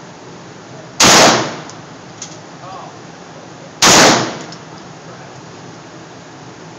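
Two 9mm pistol shots about three seconds apart, each a sharp crack followed by a short echo off the indoor range's concrete walls.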